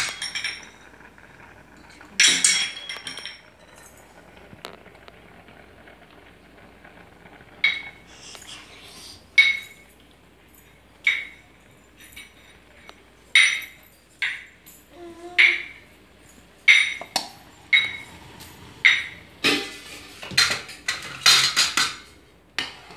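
Metal kitchenware clinking against an aluminium cooking pot as jaggery syrup is strained from a steel vessel into it. The taps are short and sharp, about one every second or two, and they crowd together near the end.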